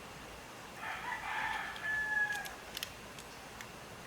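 A rooster crows once, a held call of about two seconds that starts about a second in, followed by a few light clicks.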